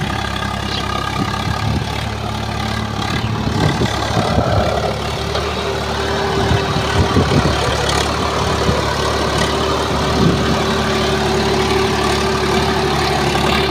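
Swaraj 742 FE tractor's diesel engine running steadily while it pulls a rotavator tilling the soil, with some irregular clatter from the rotavator working the ground a few seconds in.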